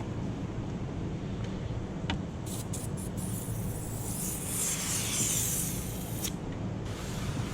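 Water sprayer hissing on glass: a few short squirts, then about two seconds of continuous spray, over a steady low hum.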